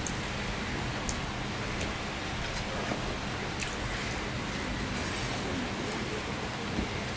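Steady rain falling, an even hiss at a constant level, with a few short clicks over it.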